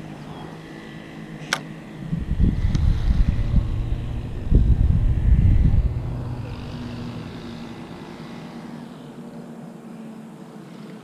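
Wind buffeting the microphone in loud, irregular low gusts that die down, over a faint steady low hum. A single sharp click sounds about a second and a half in.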